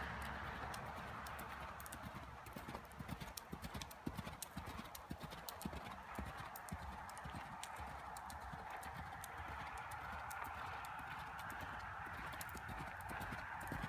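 A ridden horse's hooves striking a gravel-sand arena surface in a quick, running series of hoofbeats.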